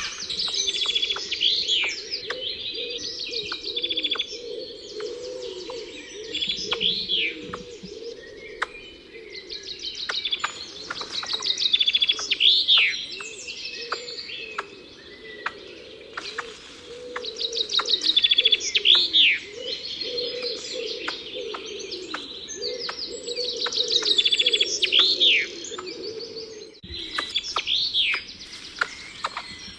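Several wild birds singing together: rapid trills and sharp rising-and-falling whistled notes, over a low warbling undertone. The sound breaks off for a moment near the end, then resumes.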